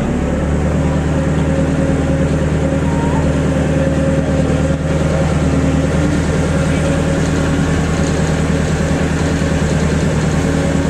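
Tour boat's engine running steadily with a low hum, picking up slightly just after the start.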